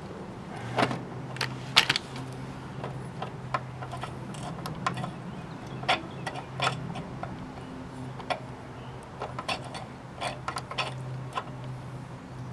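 Tools and small metal parts clinking and knocking at irregular intervals as the carburetor of a Honda HR214 lawnmower is worked loose, over a low steady hum.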